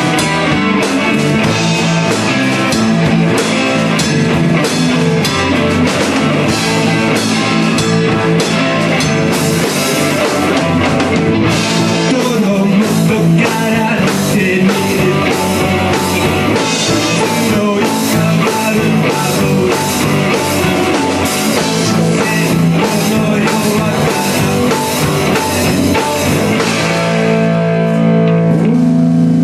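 Rock music with guitar and drum kit. Near the end the drums drop out and held chords ring on.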